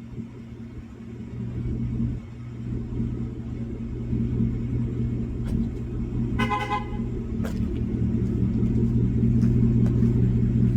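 2021 Ford F-150's 5.0 L Coyote V8 idling through a Borla cat-back exhaust, a steady low rumble that grows slowly louder. A brief higher-pitched tone sounds about six seconds in.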